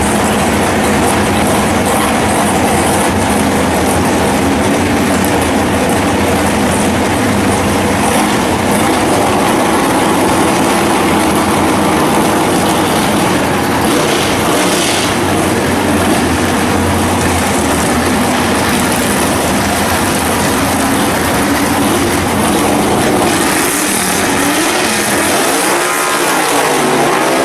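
Drag-race car engines running loudly and steadily at the starting line, with rising and falling revs near the end.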